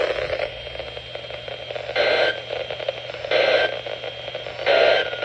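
Weather radio static, then three short buzzing bursts of EAS/SAME digital data tones about a second and a half apart, the end-of-message code that closes the NOAA Weather Radio alert.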